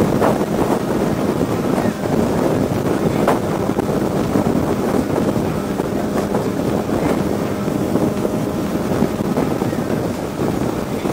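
Wind rushing over the microphone on top of the steady drone of a Honda sport motorcycle's engine cruising at highway speed.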